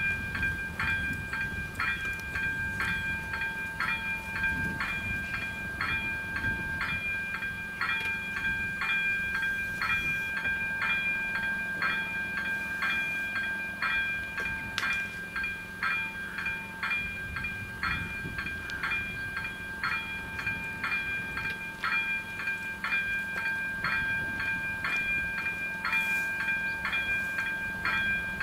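Czech level crossing's electronic warning bell ringing without pause, a ringing tone struck just under twice a second: the crossing is closed for an approaching train.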